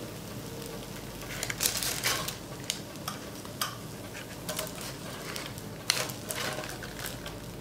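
Metal tongs clicking and tapping irregularly as grilled eggplant slices are lifted off the baking-paper-lined contact grill and set down on a glass plate, over a faint sizzle from the hot grill.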